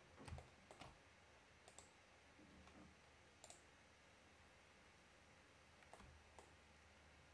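Faint, scattered clicks of a computer mouse over near silence, several single clicks and a couple of quick pairs.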